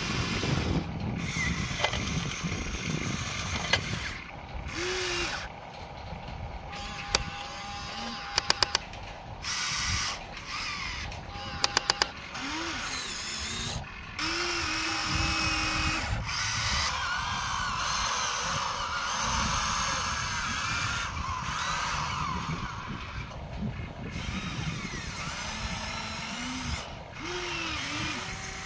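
Small electric motors of a toy radio-controlled excavator whining in stretches as its arm, bucket and tracks move, with two quick sets of four sharp clicks about a third of the way in.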